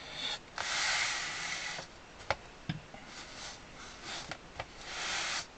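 A person breathing out through the nose twice, a few seconds apart, with a few light taps and clicks in between.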